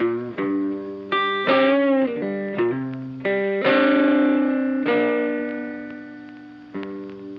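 Background music: an electric guitar with effects playing a run of bent, sustained notes, then a held chord that fades away, and one last note near the end.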